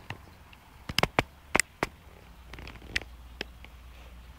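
Poodle puppy giving a string of short, sharp high yips, about eight of them in the first three and a half seconds, the loudest around a second and a half in.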